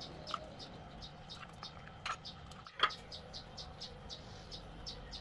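Batter being spooned into a metal baking frame, with two light knocks about two and three seconds in, over a faint, rapid run of short high chirps.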